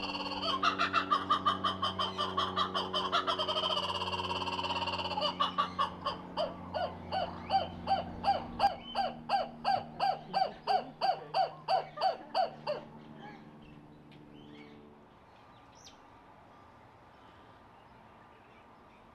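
Laughing kookaburra giving its laughing call: a long rhythmic series of loud repeated notes, about three or four a second, with a steady low hum underneath. The calling breaks off about two-thirds of the way through, leaving only faint background.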